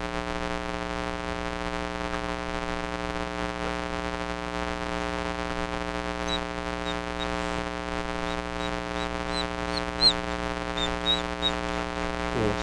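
A steady electrical hum that does not change, with faint short high-pitched bird chirps coming in from about halfway through.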